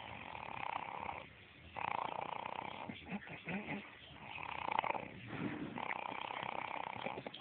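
Heavy rhythmic snoring from a sleeper: four long rasping snores, one about every two seconds, with quieter breaths in between.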